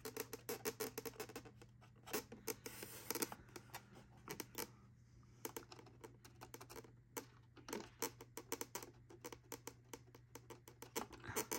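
Faint, irregular clicks and taps of hands handling a 1:18 scale diecast model car, over a steady low hum.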